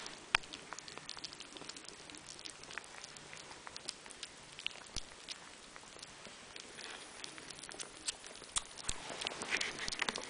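Two kittens eating wet cat food from a plate: an irregular run of small wet clicks and smacks from chewing and lapping, thickest near the end.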